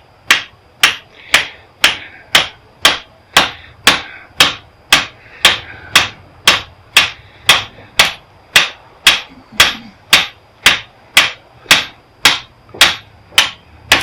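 Hammer striking metal in a steady rhythm of about two blows a second, each a sharp ringing clank, working apart the metal of a welder's transformer to expose its copper winding.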